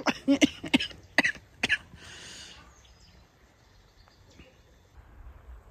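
A person's short voice sounds, like coughs or throat clearing, in the first couple of seconds, then a brief breathy hiss, then quiet outdoor air.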